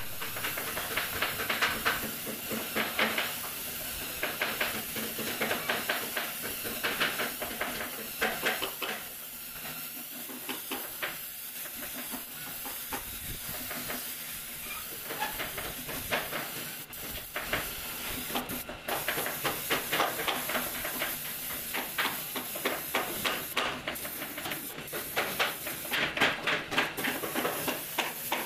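Compressed-air spray gun hissing as it atomises brown wood polish, with small rises and dips in level.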